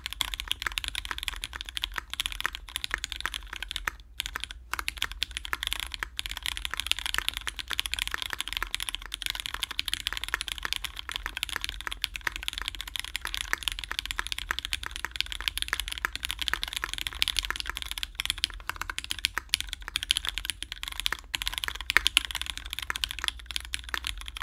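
Fast, continuous typing on a Duck Orion V2.5 mechanical keyboard: a dense stream of keystroke clacks from lubed Cherry Hyperglide MX Black linear switches in an aluminum plate, under GMK doubleshot ABS keycaps.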